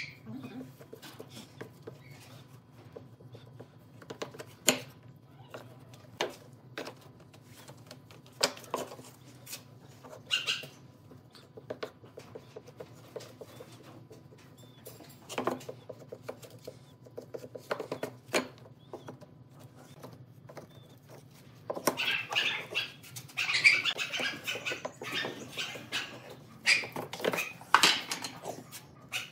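Scattered knocks and taps of wooden boards being handled and laid together in a glue-up, with a wooden stick scraping glue across the wood, over a faint steady hum. About three-quarters of the way through, a busier run of chirping sounds joins in.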